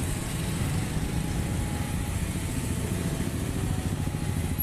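Motorcycle ridden slowly through town traffic: a steady low rumble of engine and road noise.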